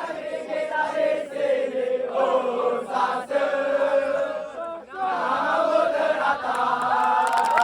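Many voices chanting together in unison, holding drawn-out notes.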